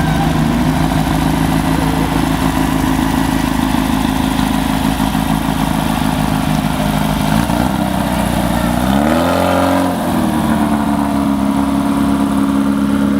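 Off-road race car engine idling steadily, with one rev that climbs and drops back to idle about nine to ten seconds in.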